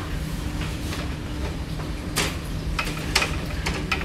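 Metal-framed mosaic tile sample panels swung on a showroom display rack, giving a few sharp knocks and clatters, the loudest about halfway through, over a steady low hum.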